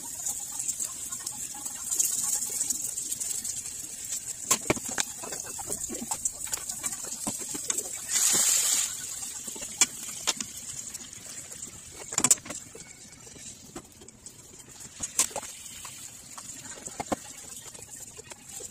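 Pork belly cubes sizzling in a nonstick frying pan, a steady high hiss with frequent sharp pops and spatters, with a louder burst of sizzling about eight seconds in as liquid seasoning goes into the hot fat. A few knocks of a utensil against the pan; the audio is played back at double speed.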